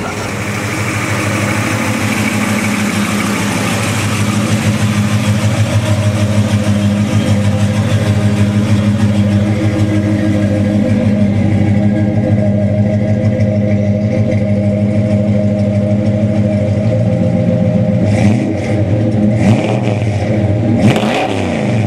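Classic muscle car engine idling steadily close by, its pitch holding constant. Near the end come a few knocks and a brief change as the engine note bends down and back up.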